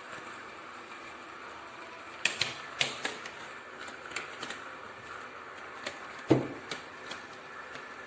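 A scattering of sharp clicks and taps in small clusters, with one louder knock about six seconds in, over a steady hiss in a small room.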